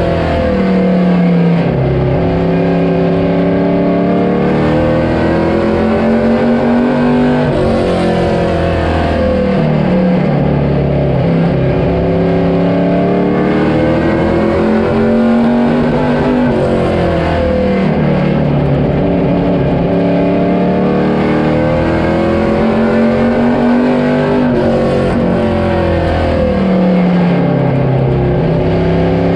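A motor vehicle engine running loudly, its pitch dipping and then climbing back up about every eight seconds.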